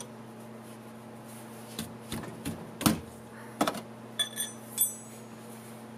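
A long thin hand tool clicking and clinking against the golf cart's underbody, about eight sharp knocks in three seconds, the last few ringing briefly like metal; a steady low hum underneath.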